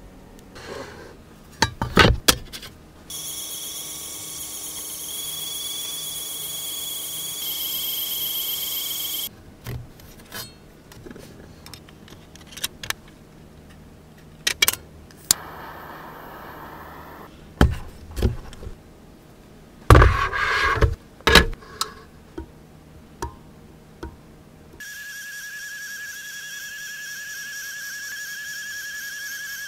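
A 3D printing pen's feed motor running with a steady high whine, once for about six seconds and again near the end. In between come sharp clicks and knocks of tools and parts being handled on a workbench.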